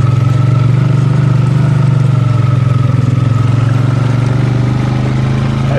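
Engine of a farm vehicle running steadily at an even, low speed.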